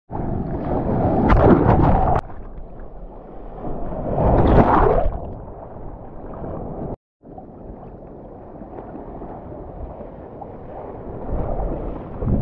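Sea water splashing and sloshing around a bodyboard at the surface, with two louder surges of rushing water about a second in and again around four to five seconds in. The sound cuts out for a moment about seven seconds in.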